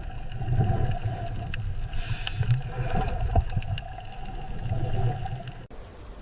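Sea lion calling, a series of low calls over a background of water, with scattered clicks; the sound cuts off abruptly near the end.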